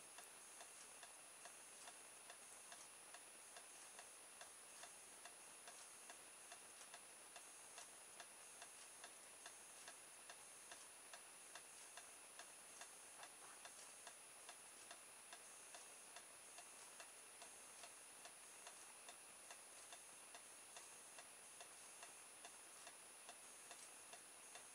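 Faint, even clock-like ticking, about two ticks a second, over near silence with a thin steady high whine.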